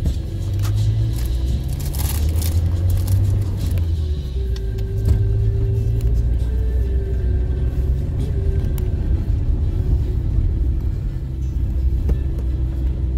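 Car driving, with a steady low rumble of engine and tyre noise heard from inside the cabin.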